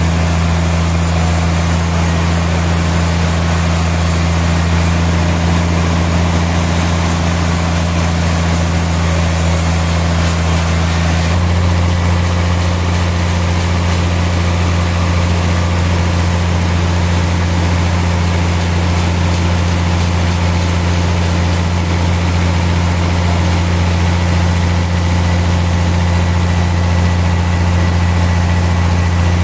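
Sawmill machinery running with a steady, loud low drone, shifting slightly in tone about eleven seconds in.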